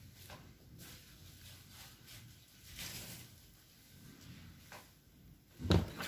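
Faint handling noises, light clicks and rustles, with one loud dull thump near the end.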